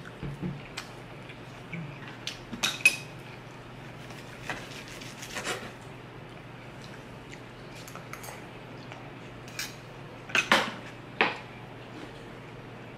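Cutlery clinking and scraping as a knife and fork cut steak on a wooden board and a spoon scoops food, in scattered sharp clicks, the loudest about three seconds in and again around ten to eleven seconds.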